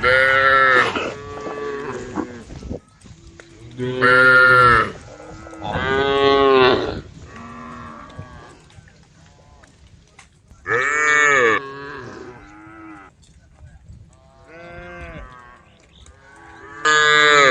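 Cows mooing: five loud, drawn-out moos a few seconds apart, with fainter moos in between, as the herd calls back and forth.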